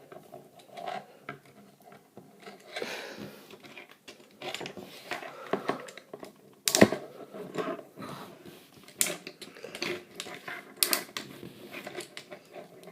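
Hard plastic parts of a Leader class Bumblebee Transformers toy being handled and shifted, giving irregular clicks and light knocks as pieces are moved and tabbed into place, with one sharper knock about seven seconds in.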